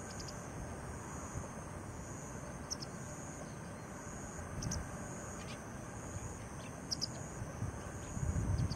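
White wagtail calling: short, sharp high chirps, several in pairs, about six times. A steady high pulsing drone and a low rumble run underneath.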